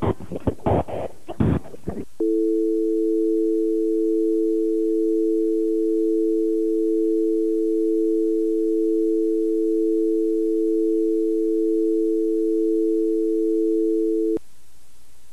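Irregular crackling bursts, then a telephone dial tone: two steady tones held together for about twelve seconds, cutting off abruptly near the end and leaving a steady hiss.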